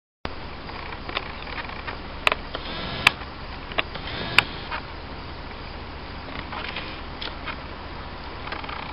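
Outdoor ambience with a steady low hum and distant traffic. It starts abruptly just after the beginning, and a few sharp clicks fall in the first half.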